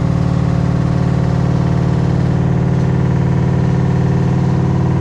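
LG ThinQ WM12WVC4S6 front-loading washing machine in its 1000 rpm spin cycle: a loud, steady hum with a fast, even throb. This is the spin noise the owner is showing.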